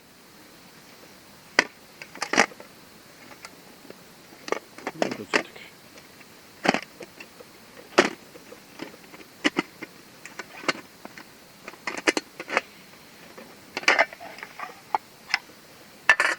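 Irregular sharp clicks and knocks, spaced from under a second to a couple of seconds apart, over a faint steady hiss.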